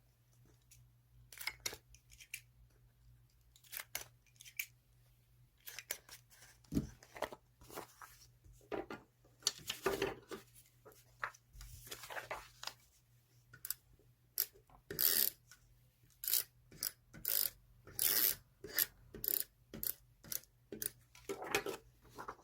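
Scissors cutting magazine paper, with paper handled between cuts: a run of short, crisp snips and rustles, with a few longer rustling strokes near the middle.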